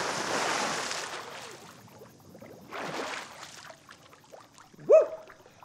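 A man jumping into a swimming pool: the big splash dies away as the water falls back, and another splash comes about three seconds in. Near the end there is a short, loud cry that rises in pitch.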